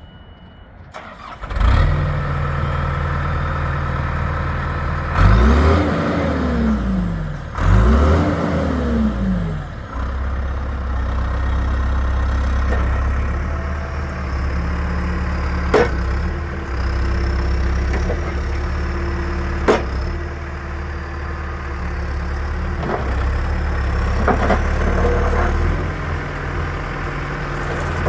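John Deere 410G backhoe loader's diesel engine starting about a second and a half in and settling into a steady idle. It is revved up and back down twice a few seconds later, then runs steadily, with two sharp clicks further on.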